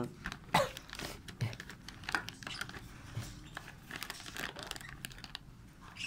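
Thin plastic packet crinkling and rustling as fingers open it and pinch out powder, in irregular small crackles and clicks.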